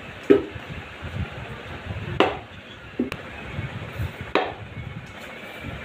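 Cricket bat striking a hanging practice ball: four sharp knocks, irregularly spaced a second or two apart.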